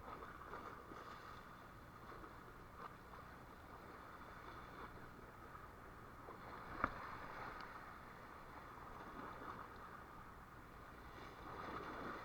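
Faint, steady boat ambience: a low hum under a light hiss of wind and water, with one sharp click about seven seconds in.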